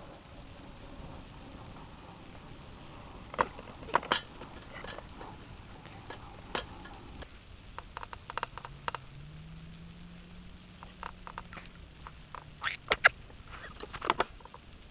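Firewood crackling and popping as it burns in a homemade ammo-can wood stove: irregular sharp snaps over a faint hiss, with a cluster of loud pops near the end.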